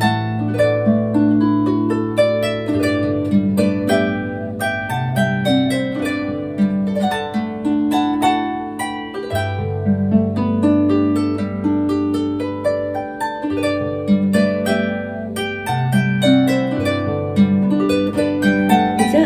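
Background music on solo harp: a flowing run of plucked notes over low, ringing bass notes.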